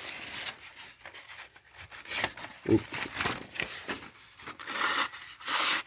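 Freshly sharpened kitchen knife slicing through paper in a sharpness test, a run of scraping, tearing strokes with paper rustling, the longest stroke near the end.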